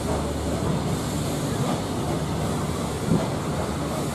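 Passenger train running along the track, heard from an open coach window: a steady noise of wheels on rail and rushing air, with one short knock about three seconds in.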